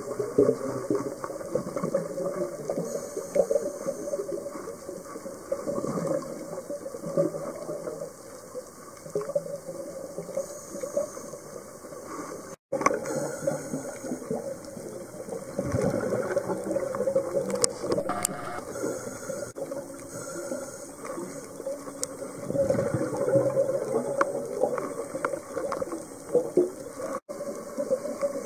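Underwater sound picked up by a compact camera during a scuba dive: gurgling and bubbling, most likely from the diver's exhaled regulator bubbles, rising in surges every few seconds over a steady underwater hum. The sound drops out abruptly twice, at clip joins.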